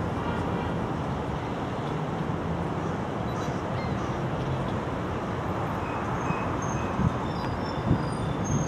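Steady low rumble of the Great Lakes bulk freighter James R. Barker under way, mixed with an even noisy haze, with a few faint short bird calls in the last few seconds.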